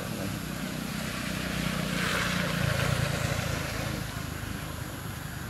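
A motor vehicle passing by, its engine hum and road noise swelling to a peak about halfway through and then fading.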